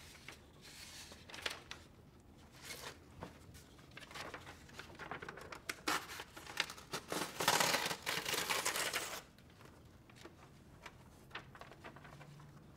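Sheets of drawing paper rustling and crinkling as they are handled, with a louder stretch of rustling a little past the middle and small taps in between.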